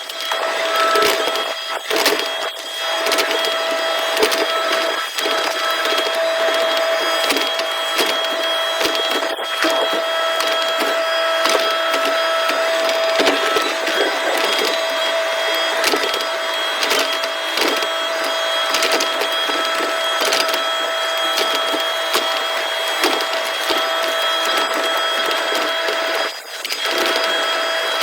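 Digger at work on sharp sand: a steady engine and hydraulic whine under dense crackling and scraping, with a short drop in level near the end.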